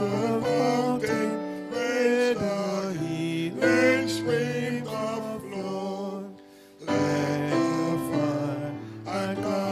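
A hymn sung with instrumental accompaniment, with a short break about six and a half seconds in before the music picks up again.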